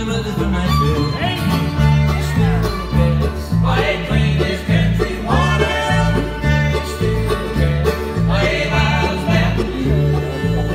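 Live bluegrass band playing an instrumental break on fiddle, banjo, mandolin, acoustic guitar and upright bass. Several notes slide upward over a steady bass beat.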